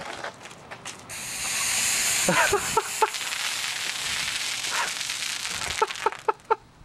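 A 2-litre bottle of Diet Coke erupting as Mentos drop into it: a loud hiss of foaming soda spraying out in a thin, high jet, starting about a second in and dying away near the end.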